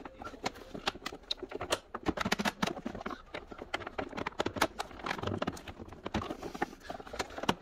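The plastic air filter housing of a 2003 Ford Thunderbird knocking and clicking as its top piece is twisted and worked into place by hand: a rapid, irregular run of clicks and knocks.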